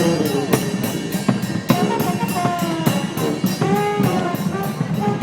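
Live street band playing: drums keep a quick, steady beat under a melody line.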